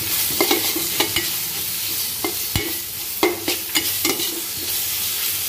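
Sliced onions and ginger-garlic paste sizzling in oil in a stainless steel pan, with a spatula scraping and knocking against the pan in a run of short strokes as they are stirred. The mixture is being sautéed to cook off the raw smell of the ginger-garlic paste.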